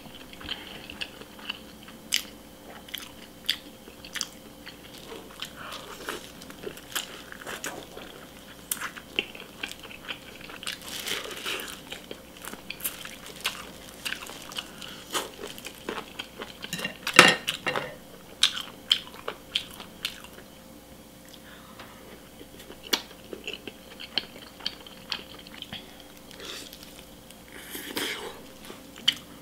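Close-miked eating: a person biting and chewing grilled chicken leg and omelet rice, with many short, irregular mouth clicks and smacks. The loudest bite comes about 17 seconds in.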